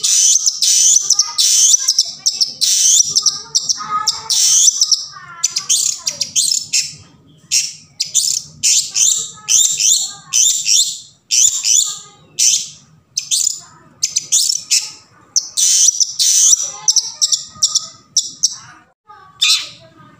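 Long-tailed shrike (cendet) singing: a fast chatter of short, high chirps mixed with lower, varied notes. The song is unbroken at first and then comes in quick bursts with short gaps.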